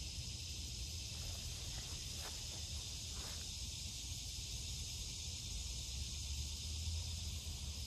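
Steady, high-pitched drone of a summer insect chorus, with a low rumble underneath.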